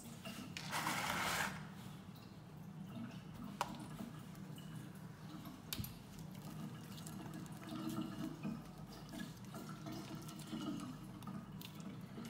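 A metal spoon scrapes briefly through frozen ice cream in a plastic tub about a second in. Soft wet handling sounds and a few light clicks follow as the ice cream is pressed and rolled between the hands. A low steady hum runs underneath.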